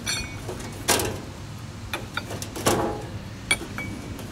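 Clicks and clinks of metal grill control knobs being pulled straight off their stems on a stainless-steel control panel: about seven sharp, irregular clicks, a couple with a short metallic ring.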